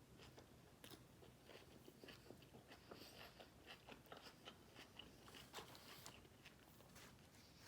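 Faint chewing and biting of fast food close to the microphone, with many small clicks scattered through it.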